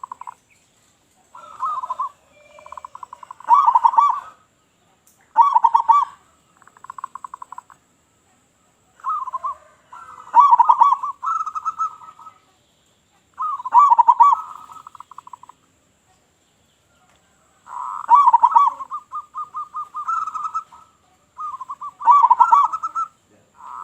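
Local zebra dove (perkutut) cooing. It gives repeated phrases of quick, rolling staccato coos, each a second or two long, with short pauses between them.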